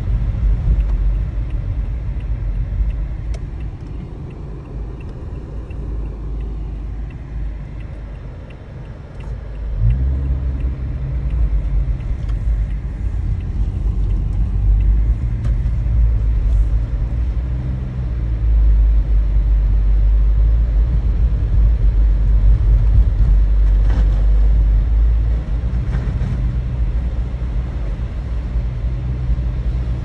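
Low rumble of a car's engine and tyres on a wet, slushy snow-covered road, heard from inside the cabin. It eases off around eight seconds in, picks up sharply about ten seconds in, and is loudest from about eighteen seconds.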